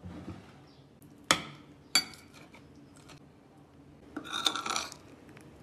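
Cutlery clinking against dishes: two sharp ringing clinks about a second and two seconds in, then a short burst of a fork scraping and clinking on a plate about four seconds in.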